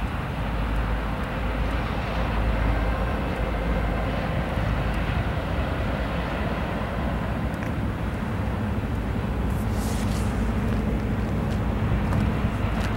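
Steady low rumble of a CSX freight train passing, its diesel locomotives running as they lead the cars by.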